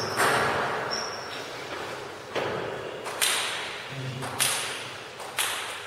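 Table tennis ball clicking in a large hall: five sharp single clicks, spaced irregularly about a second apart, each followed by a short echo.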